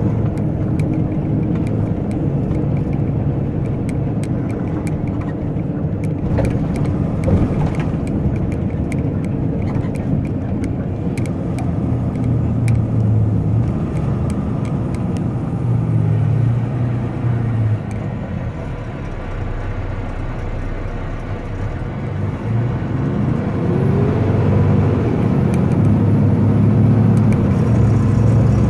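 Dump truck's diesel engine running with road noise, heard from inside the cab. The engine note eases off past the middle, then climbs in pitch and loudness near the end as the truck pulls away again.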